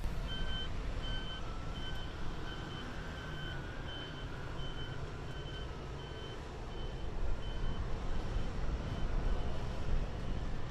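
Electronic beeping repeating about twice a second, like a vehicle's reversing alarm, over the steady low rumble of a Mirage 2000 fighter's jet engine as it taxis. The rumble grows louder a little past the middle.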